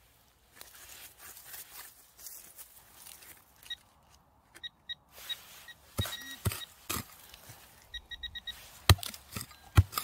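Hand digging tools scraping and chopping into dry forest soil, with several sharp strikes in the second half. Short, high-pitched metal detector beeps sound in between.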